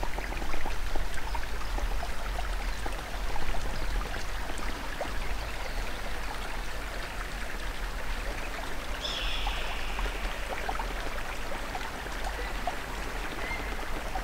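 Steady rush and trickle of a small mountain creek, with a brief high whistle about nine seconds in.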